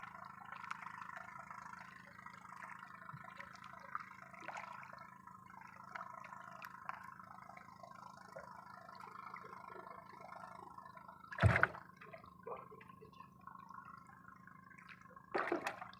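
Water dripping and sloshing over a steady low hum, with two loud knocks about eleven and fifteen seconds in.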